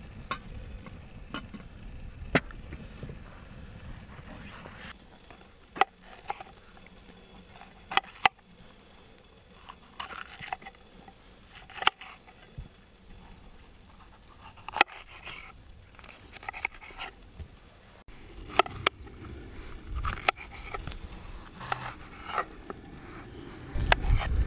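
A small wood fire crackling under a kettle, then a knife slicing red bell peppers on a wooden cutting board from about five seconds in: sharp knocks of the blade on the board every second or two, with crisp cuts through the pepper flesh.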